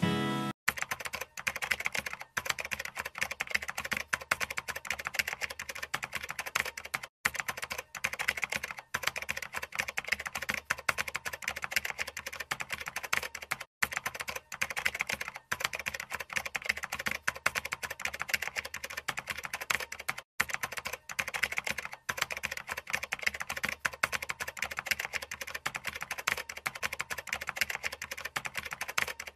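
Rapid, continuous computer-keyboard typing clicks, a typing sound effect to go with the on-screen text. It drops out briefly about every six or seven seconds.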